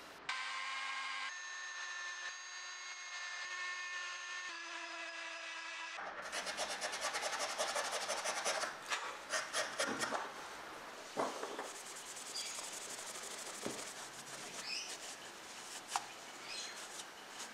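Cloth rubbing and polishing small brass electrode tubes: a fast, scratchy scrubbing that is busiest for a few seconds, then lighter strokes with an occasional sharp click. Before the rubbing starts, steady electronic tones hold for about six seconds, stepping in pitch twice.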